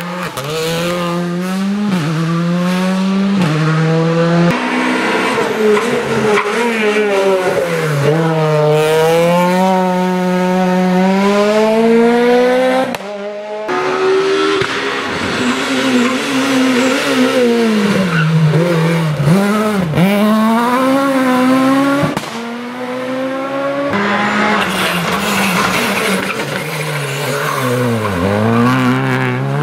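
Skoda Fabia R5 rally cars' 1.6-litre turbocharged four-cylinder engines driven flat out through hairpins. The engine note climbs steeply through the gears and drops sharply on the brakes, again and again. The sound breaks off twice where separate passes are cut together.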